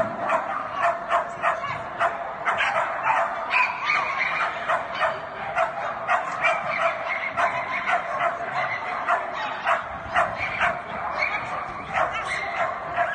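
Small dog barking excitedly in rapid, repeated short barks, about two or three a second, as it runs an agility course.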